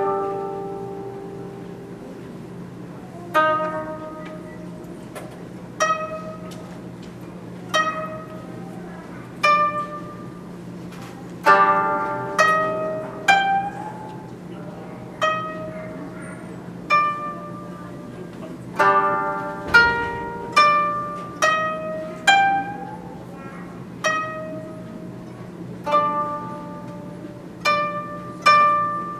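Koto played solo: single plucked notes at a slow, unhurried pace, each ringing and fading away, with quicker runs of several notes about twelve seconds in and again about twenty seconds in.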